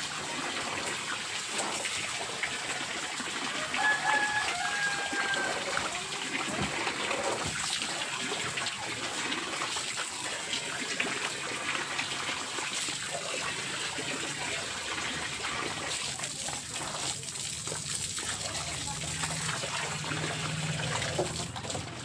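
A rooster crows once, about four seconds in, over a steady wash of noise full of small clicks and rustles.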